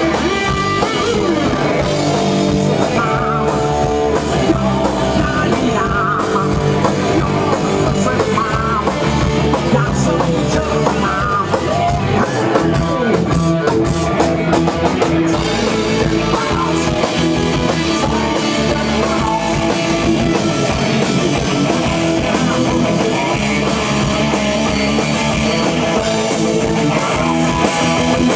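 Rock band playing live, electric guitars to the fore, with singing.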